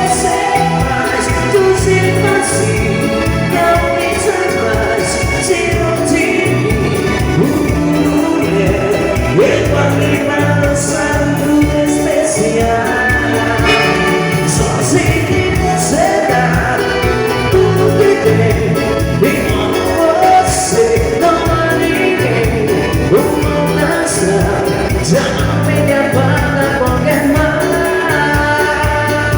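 Bolero played by a live band, with a steady, even bass beat under melody lines.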